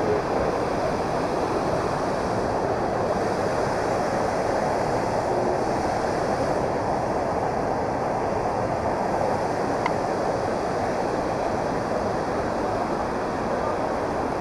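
Steady rush of water from the Peguche waterfall, an even noise with no breaks.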